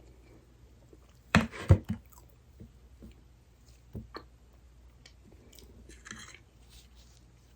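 Close-miked eating of a dessert: a loud cluster of bites about a second and a half in, then quieter chewing with a sharp click near the middle and a short rustle later.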